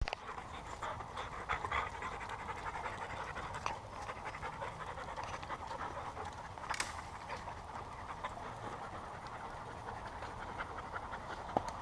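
Dogs panting steadily at close range, with scattered short clicks and one sharper click about seven seconds in.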